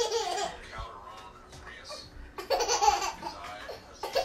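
A baby laughing in two bursts, one at the start and one about two and a half seconds in.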